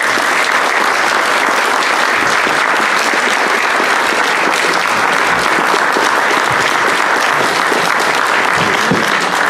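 An audience applauding steadily, many hands clapping at once.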